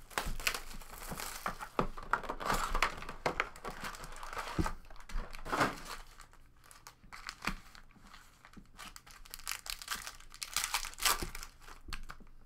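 Foil-wrapped trading card packs crinkling as they are lifted out of an opened cardboard hobby box and stacked. The rustle is dense for the first half, then sparser crackles, with another burst of crinkling near the end.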